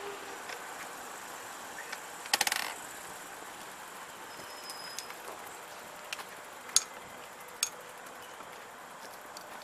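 Steady low background noise, broken by a short, quick mechanical rattle of clicks about two seconds in, the loudest sound, and two sharp single clicks a little under a second apart past the middle.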